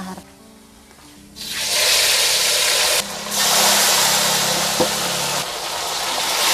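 Fish frying in hot oil: a loud, even sizzle starts about a second and a half in, dips briefly around three seconds, and then keeps going.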